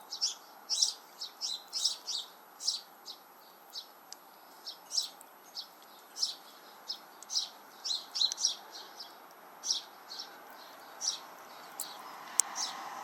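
House sparrows chirping: short, high cheeps repeated every half second to a second, with brief pauses.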